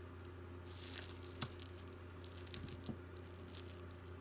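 Small metal jewelry pieces being handled while a broken necklace is being worked on: a short rustle, one sharp click about a second and a half in and a few lighter clicks after, over a steady low hum.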